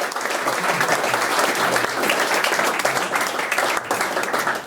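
Audience applauding: dense, steady clapping that cuts off abruptly.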